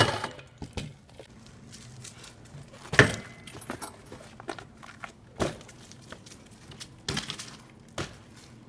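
BMX bike being ridden: a series of sharp knocks and clacks of the bike landing and its parts striking the ground, about five spaced a second or two apart, the first and the one about three seconds in the loudest.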